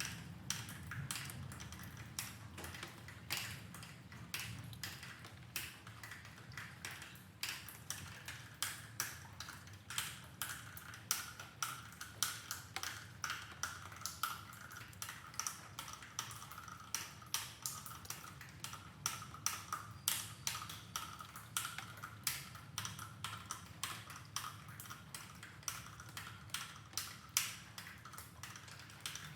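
Rain dripping: single water drops tapping irregularly, two or three a second, over a faint low rumble.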